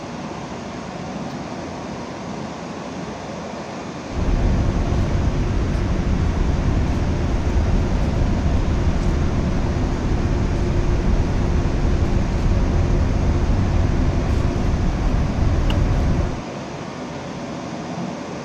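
Steady hiss of the cockpit air conditioning. About four seconds in it cuts to a much louder low rumble with a steady hum: a Boeing 787's jet engine at taxi power, heard through the cabin window beside the wing. Near the end it cuts back to the quieter cockpit hiss.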